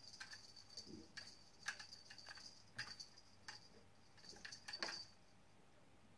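Faint, irregular metallic jingling and clicking from a wire-spring dangling cat toy as a kitten bats it with its paw. It comes in quick strikes through the first five seconds, loudest near two and five seconds in, then stops.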